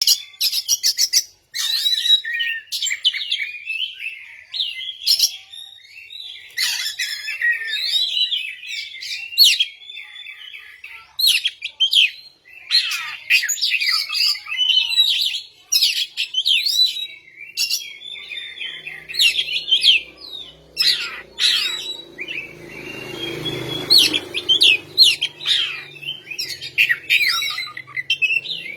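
Oriental magpie-robin (kacer) singing without pause: a fast, varied run of whistles, trills and sharp chirps. About two-thirds of the way in, a low hum comes in under the song, swelling to a brief rumble.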